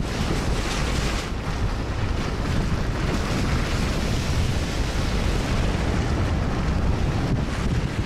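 Wind rushing over the microphone of a camera on a moving car, over a steady low rumble from the car driving along the road.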